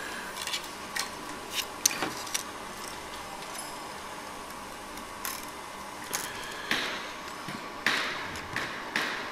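Thin lacquered winding wire being looped and twisted by hand around a model tree-trunk blank: irregular light clicks and scrapes, scattered throughout and bunching up near the end.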